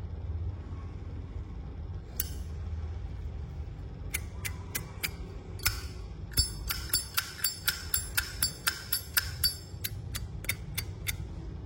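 Brass Zippo lighter being handled, its lid and case giving sharp metallic clicks and clinks. They come a few at a time at first, then two or three a second from about six seconds in.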